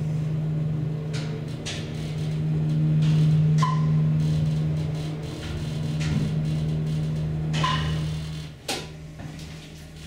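Dover hydraulic elevator's pump motor humming steadily as the car rises, with the floor-passing chime giving a short chirp twice. Near the end the hum cuts off and there is a thump as the car stops at the floor.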